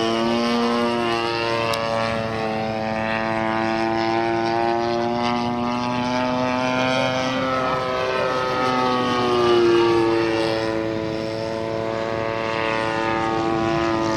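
EME 35cc single-cylinder two-stroke petrol engine of a large RC aerobatic model plane in flight, running at a steady high note. The pitch sags about eight seconds in and climbs again, and it is loudest near ten seconds in.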